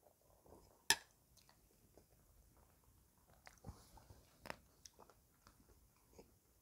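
Quiet chewing of a mouthful of rice, with a few short sharp clicks of a metal spoon against a ceramic plate, the loudest about a second in.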